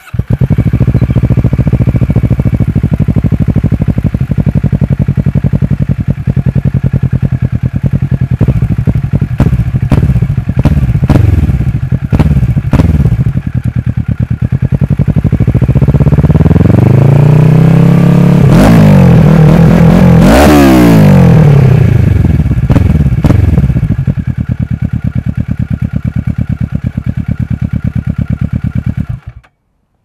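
2012 Kawasaki ER-6n's 649 cc parallel-twin engine running loud through a full Akrapovic exhaust with no dB-killer, the recording slightly overdriven. It runs steadily with a few short revs, climbs in revs through the middle and winds back down, then cuts off suddenly near the end.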